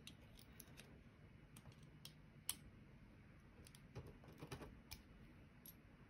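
Faint, scattered small metal clicks of needle-nose pliers working a retaining clip off the back of a Kwikset SmartKey lock cylinder, with one sharper click about two and a half seconds in.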